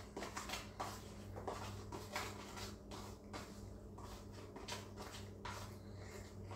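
Irregular light taps and rustles of hands working chicken pieces in a pan, coating them with mustard so the seasoning sticks, over a steady low hum.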